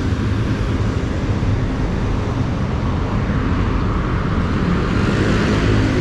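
Steady riding noise from a motor scooter on the move: its engine running with wind rushing over the microphone.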